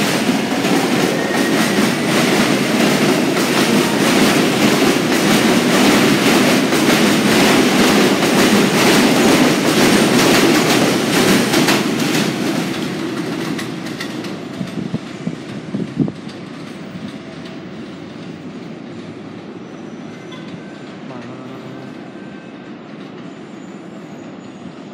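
An R143 subway train pulling out on elevated track, its wheels clattering over the rail joints as it passes close by. The sound is loud for about the first 12 seconds, then fades as the train runs off into the distance, with one sharp clack about 16 seconds in.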